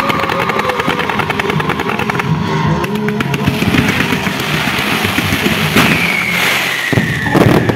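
Fireworks going off over recorded music. A rapid run of crackling reports fills the first three seconds. From about six seconds in, a whistle glides slowly down in pitch, with a few sharp bangs near the end.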